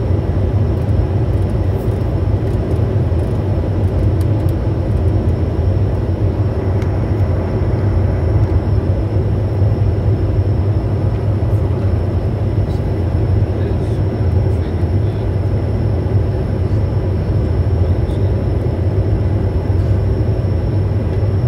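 Steady cockpit noise of a Bombardier Challenger 350 business jet on approach: airflow over the airframe and its twin rear-mounted Honeywell HTF7350 turbofans, a deep even rumble with a faint high whine above it.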